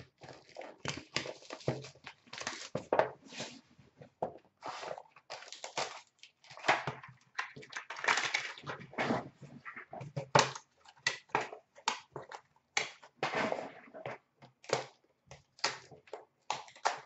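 Wrapper being torn off a box of trading cards and the box and its packaging handled: irregular crinkling, tearing and rustling with small knocks, in short bursts.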